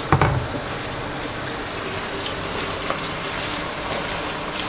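Marinated minced meat (keema) going into hot oil and golden fried onions in a pot. It lands with a thud, then sizzles steadily.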